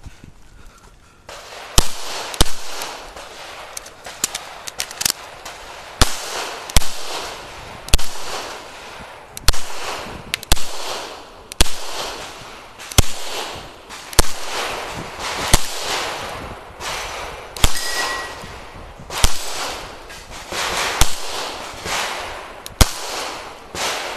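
9mm CZ Shadow 2 pistol fired through a competition stage. Sharp shots come in quick pairs and short strings, separated by pauses of a second or two, each with a short echo. The firing starts about two seconds in.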